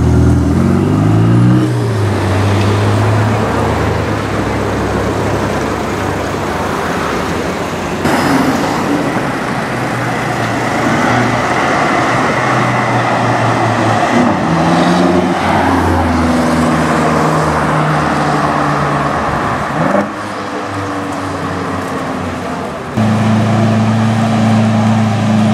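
Sports-car engines in city traffic, in several cuts: a Ferrari 488 Pista Spider's V8 rising in revs as it pulls away, then street traffic with a BMW X6 M's engine rising in revs. Near the end comes a Lamborghini Aventador's V12 running steadily at low revs.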